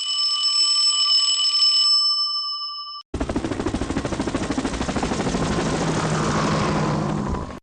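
Alarm-like ringing: a steady tone with several pitches for about three seconds, then, after a brief break, a harsh, rapidly rattling ring.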